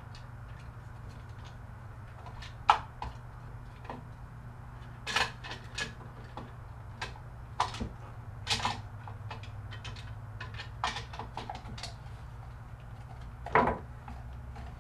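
Plastic crank-handle housing halves of a patio umbrella being pressed and fitted together by hand: irregular clicks and knocks of plastic, the loudest about three seconds in and near the end, over a low steady hum.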